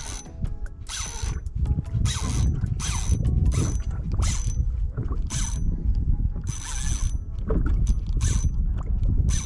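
Okuma Cyclonx spinning reel whirring in short repeated bursts, about one a second, as a hooked fish is played on light line, over a low rumble.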